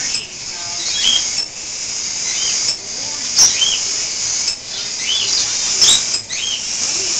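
A room full of small caged birds chirping and twittering at once, a dense high chatter with short repeated chirps standing out above it. A few sharp ticks cut through it now and then.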